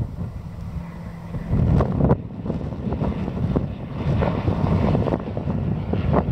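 Single-engine light propeller plane running in flight, its engine drone mixed with wind rumbling on the microphone. The sound changes abruptly about two seconds in.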